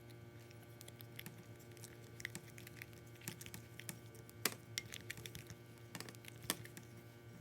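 Clear glue slime being mixed and worked, giving irregular small sticky clicks and crackles, with two sharper clicks about four and a half and six and a half seconds in. A faint steady hum runs underneath.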